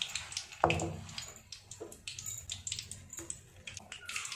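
Batter-coated jackfruit pieces being dropped into hot oil in an aluminium kadhai to deep-fry, the oil sizzling with many small sharp crackles. A louder thump about half a second in.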